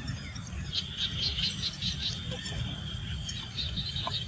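Insects chirping in a steady high-pitched chorus, pulsing several times a second from about a second in, over a constant low rumble.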